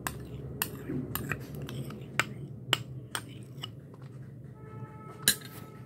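A spoon tapping and clicking against a glass bowl as fresh cream is scooped in, in scattered sharp taps, the loudest near the end.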